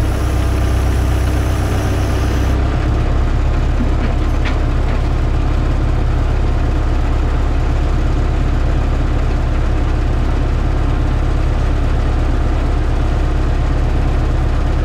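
Kirovets tractor's diesel engine running steadily, heard from inside the cab, with a hiss over the first two seconds or so.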